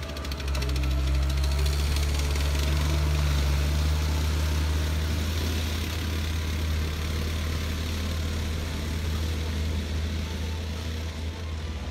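Diesel engine of a Cat compact track loader running steadily as it drives away, its low rumble slowly fading.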